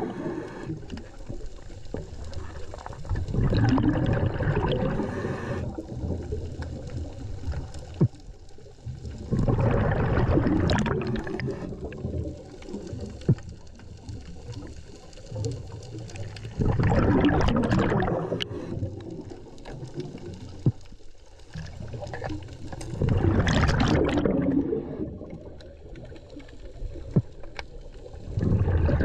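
Scuba diver breathing through a regulator underwater: a burst of exhaled bubbles every six to seven seconds, about five in all, with the quieter hiss of inhaling between them. A few sharp clicks fall between breaths.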